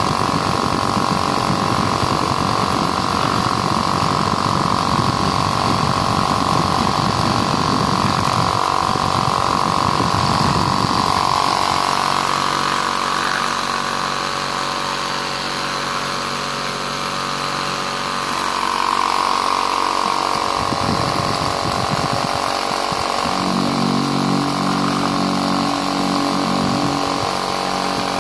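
Electric fan running with a steady motor hum and a buzzing vibration. From about two-thirds of the way through, a louder low buzz comes in and drops out in spells.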